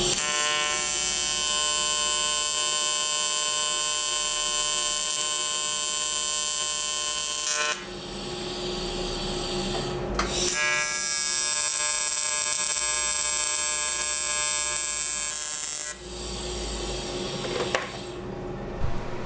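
TIG welder arc buzzing steadily while welding aluminum tabs, run on AC as aluminum needs. There are two welds: the first lasts about eight seconds, and the second starts about ten and a half seconds in and runs about five and a half seconds.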